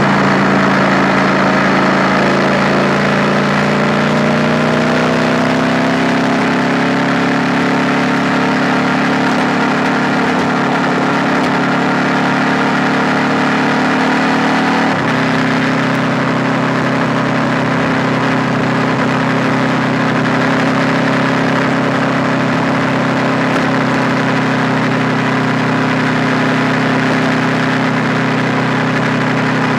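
KTM 890 Duke R's parallel-twin engine running at steady, moderate revs while the bike rides along at an easy pace. The pitch rises a little a few seconds in, and the engine note changes suddenly about halfway through.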